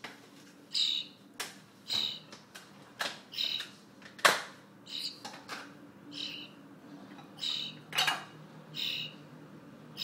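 A young starling calling over and over, short calls about once a second, between sharp taps of its beak against the tin can it is feeding from; the loudest tap comes about halfway through.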